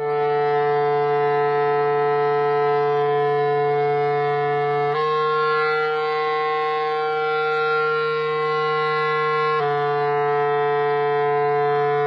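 Clarinet playing loud, long held notes: one note, a change to a second note about five seconds in, and back to the first note a little over nine seconds in.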